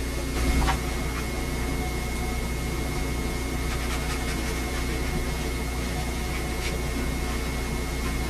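Steady hiss and low hum under a faint, high, steady whine: the background noise of an old VHS camcorder recording in a quiet room. There is one brief low bump about half a second in.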